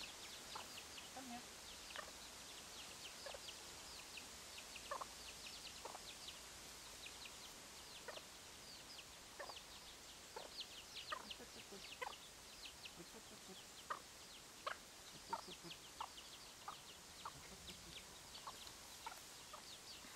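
Deutsches Buschhuhn chick peeping: short, high calls at irregular intervals, at times several a second.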